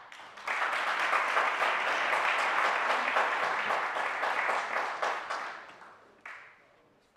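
Audience applauding, starting about half a second in and dying away over the last two seconds, with one sharp clap near the end.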